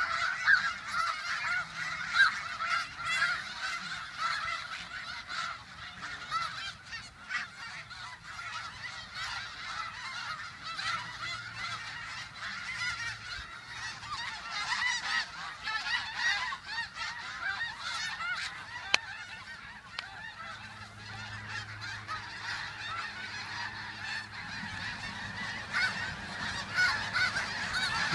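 A large flock of snow geese calling continuously, a dense chorus of overlapping honks and yelps. The calling swells louder near the end as many of the birds take flight.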